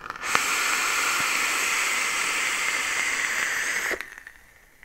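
A long draw on a Geekvape Zeus X dual-coil rebuildable tank atomizer: a steady hiss of air pulled through the tank's airflow holes while the coils fire, lasting about four seconds and stopping abruptly. The airflow is about a third closed, at about 70–75 watts, a restrictive draw.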